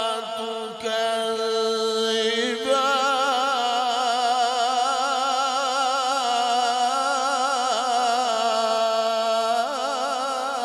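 A man's voice chanting Quran recitation (tilawat) in a melodic, ornamented style into a microphone. He holds one long unbroken phrase with a wavering pitch. The note shifts about three seconds in and moves again near the end.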